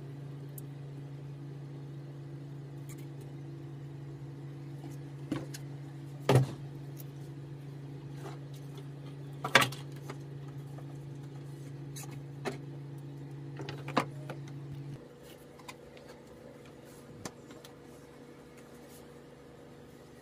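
A tablet and its packaging being handled on a table: scattered sharp clicks and knocks, two of them louder, about six and ten seconds in. Under them a steady low hum stops about three-quarters of the way through.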